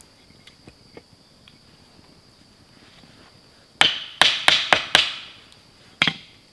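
Sharp wooden knocks as the upright of a handmade wooden frame saw is struck from above, driving its end down into the crossbar: five quick knocks in about a second, then one more a second later.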